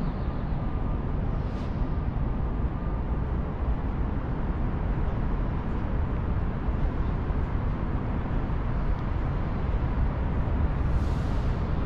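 Steady city street ambience: traffic noise, even and unbroken, with most of its weight low down.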